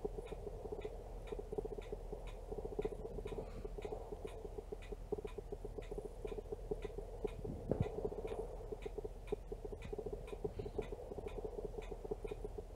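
Rapid, evenly spaced ticking, about three ticks a second, over a low pulsing hum: a camera's autofocus motor hunting for focus. One soft thump comes about two thirds of the way through.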